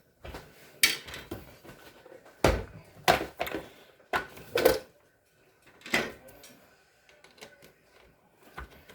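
Irregular knocks and clunks of things being handled and set down, about seven sharp hits spread unevenly, the loudest a little past two seconds in and again near four and a half seconds.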